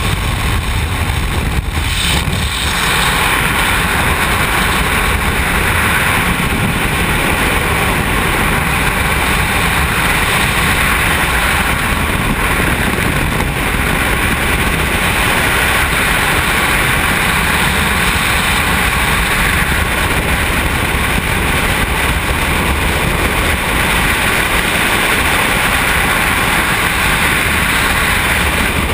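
Jump-plane engine and slipstream roaring at the open door for the first couple of seconds, then the steady, loud rush of freefall wind buffeting a helmet-mounted camera's microphone.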